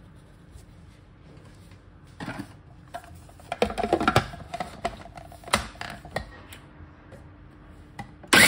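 Knocks and clicks of a plastic food processor lid being fitted onto the bowl of damp pearl millet. Near the end the food processor's motor starts suddenly and runs loudly, churning the grains to rub off their husks.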